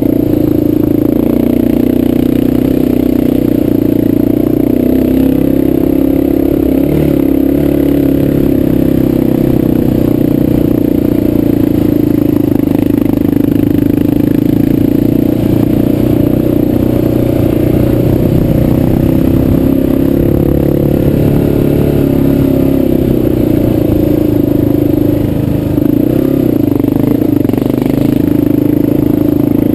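Dual-sport motorcycle engine running at a steady riding speed on a dirt trail. The note holds even, easing off slightly near the end.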